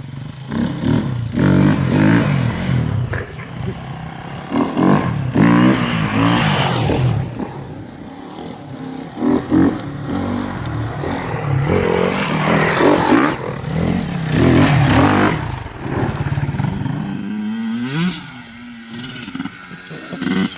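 Two-stroke dirt bike engine revving over and over, its pitch rising and falling with each twist of the throttle.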